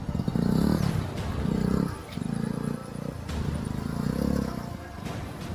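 TVS Apache RTR 160's single-cylinder engine revving in short bursts, swelling and dropping about once a second, as the bike is ridden slowly over rough grass.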